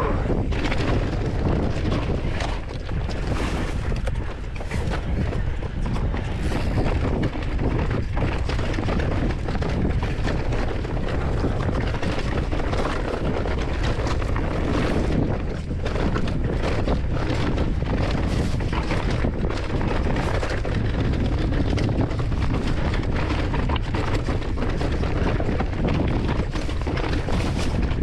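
Mountain bike descending a rough rocky trail: a continuous low rumble with constant clattering knocks as the tyres and bike rattle over the rocks.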